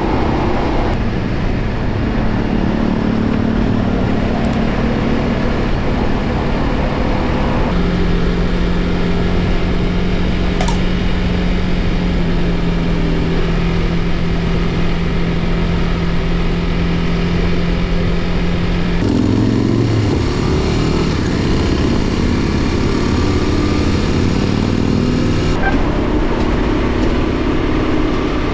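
Motorcycle engine running at a steady cruising speed, heard from on the bike with a constant rush of wind and road noise. The engine note steps to a new pitch a few times, about a quarter of the way in, about two-thirds in and again near the end.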